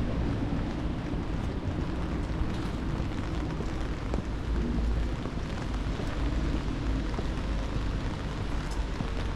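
City street in the rain: a steady low rumble of traffic under the even hiss of falling rain.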